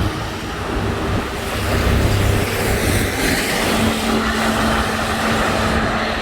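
Busy road traffic: motor vehicle engines running and passing close by, with a steady low engine hum setting in about halfway through.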